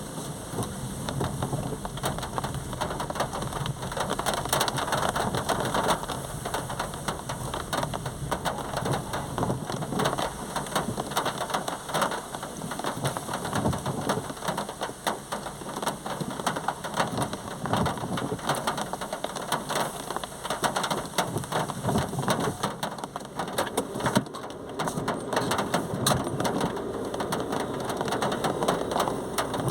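Steady heavy rain falling, with a dense patter of drops hitting a surface.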